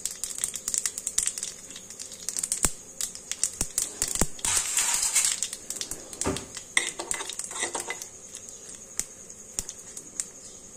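Mustard seeds spluttering in hot oil in a small wok with dried red chillies: a fast run of sharp pops over a steady high sizzle, thinning out after about eight seconds.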